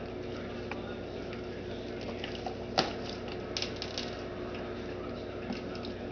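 A cat clawing and biting at a bag of dry cat food: scattered crinkles and crackles of the bag, with one sharp snap a little before halfway and a quick run of crackles just after, over a steady low hum.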